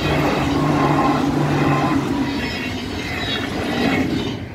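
NS ICMm electric intercity train passing close by over a level crossing, its wheels rumbling and clattering on the rails, with a steady low hum for the first couple of seconds. The sound drops away suddenly near the end as the last coach passes.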